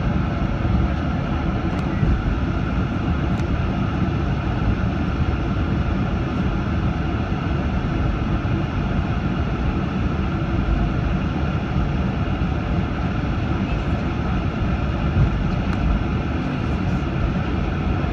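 Steady cabin noise of a Boeing 737-800 airliner taxiing after landing, its jet engines running at low power as an even low hum.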